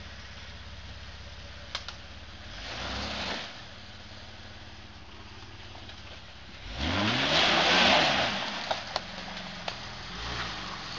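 Jeep Wrangler's 4.0-litre straight-six engine running at low revs as it crawls over rough ground, with a short rise in revs about three seconds in and a louder rev climbing in pitch from about seven seconds in, easing off about two seconds later. A few sharp knocks come through as well.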